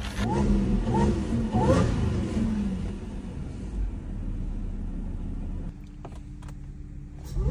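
Audi A7's supercharged V6, fitted with a CTS intake, blipped three times in quick succession, then running steadily and growing quieter near the end.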